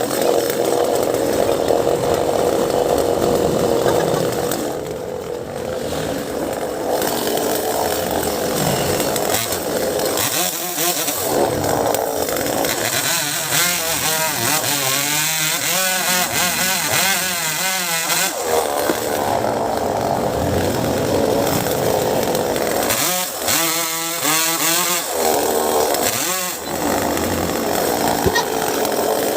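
Two-stroke chainsaw running and cutting mango wood, its engine pitch rising and falling repeatedly as it is revved.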